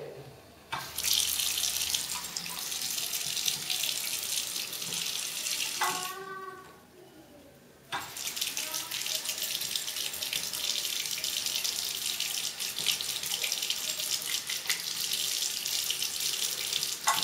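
Infrared sensor faucet running into a ceramic washbasin. It switches on about a second in, shuts off about six seconds in, comes on again at about eight seconds, and cuts off abruptly near the end, as the kitten's paw trips and leaves the sensor.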